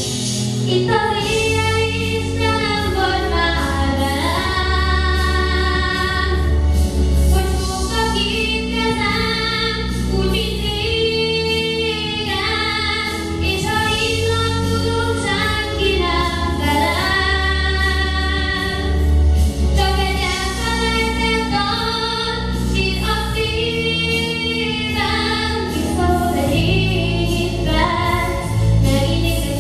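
A boy singing solo into a handheld microphone, amplified through a PA, over a musical accompaniment with a steady bass line.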